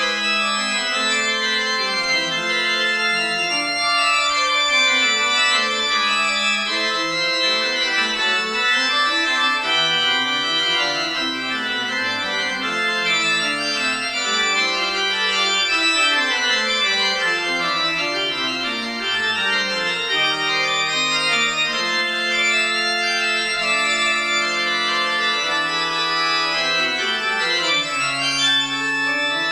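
Church organ playing the postlude: sustained chords with a bass line that steps up and down.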